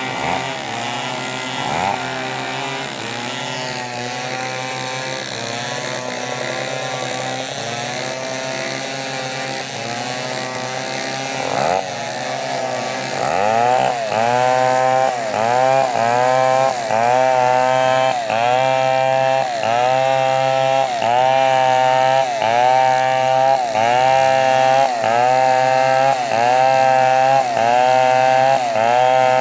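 Two-stroke chainsaw running, its pitch wavering, then a little under halfway through it gets louder and settles into cutting a coconut palm trunk, the engine note dipping under load and recovering about once a second in a steady rhythm.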